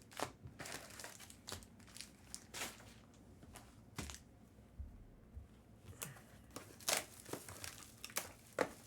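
Trading-card pack wrappers crinkling and tearing as packs are opened and cards handled, in short irregular rustles.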